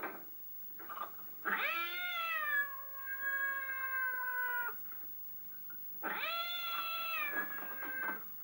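A cat giving two long, drawn-out meows, the first about three seconds long and the second about two, each rising sharply at the start then sliding down in pitch and holding.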